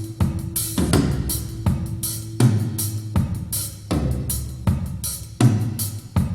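Recorded music with a drum kit playing a steady beat (kick drum, snare and cymbals), with no singing, played back through a bookshelf loudspeaker for a listening test.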